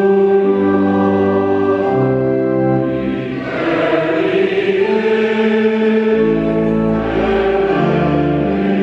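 Mixed adult church choir singing a slow hymn in harmony, with sustained organ accompaniment whose bass notes step down and up beneath the voices. The choir swells fuller about a third of the way in.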